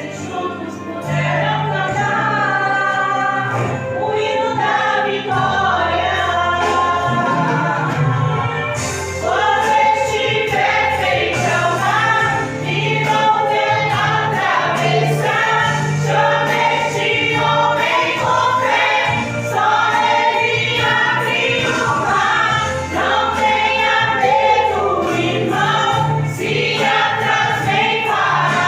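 A group of women singing a gospel praise song together over instrumental accompaniment with a steady bass line. A regular high percussion beat, like a hi-hat or cymbal, comes in about nine seconds in.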